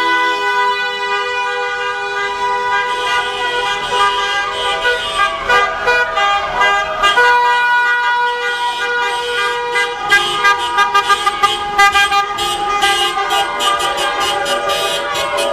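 Many car horns honking at once, several held in overlapping steady tones. In the second half they are joined by a rapid run of short toots or sharp pops.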